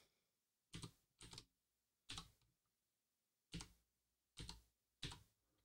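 Computer keyboard keys pressed one at a time: about six faint keystrokes with uneven pauses between them, a password being typed in slowly.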